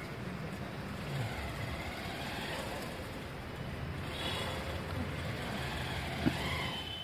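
Street ambience: a steady low rumble of road traffic, with a short sharp tap about six seconds in.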